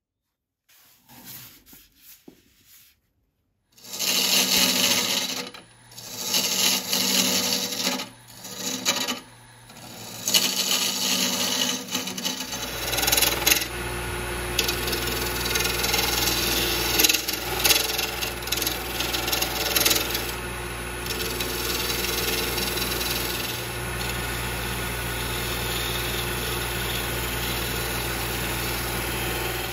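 Wood lathe turning a bamboo, epoxy resin and coloured-pencil blank: a tool cuts in several passes with short pauses between them. From about twelve seconds in, the spinning piece is sanded in one continuous stretch over a steady low hum, which cuts off at the end.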